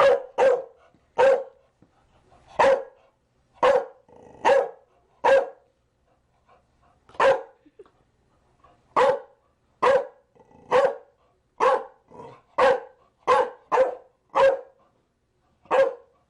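Chow Chow barking: about seventeen short single barks at an uneven pace, with a pause of about two seconds partway through.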